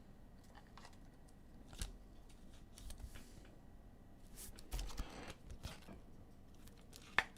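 Faint clicks and light rustling of trading cards being handled and flipped, with a short scrape about five seconds in and a sharper click near the end.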